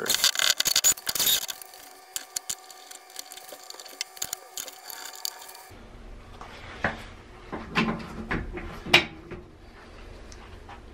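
Hand screwdriver driving screws into a toilet paper holder's wall bracket: a dense run of scraping and clicking at first, then sparse light clicks. Later a few louder knocks, with a low hum underneath.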